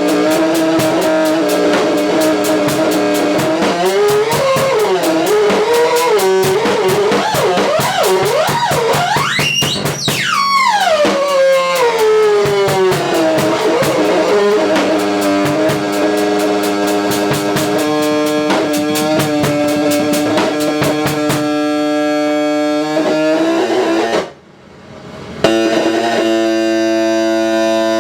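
Improvised noise-rock jam of electric guitar, drums and a DIY noise-box synthesizer. Sustained, droning tones wobble in pitch, sweep sharply up and back down about ten seconds in, and run over a fast, even clicking pulse. Near the end the sound cuts out for about a second, then comes back as a steady held chord.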